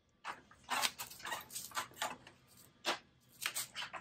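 Red plastic side trim panel of a BMW R1200GS Adventure being worked loose and pulled off by hand: a string of irregular plastic clicks, creaks and rustles.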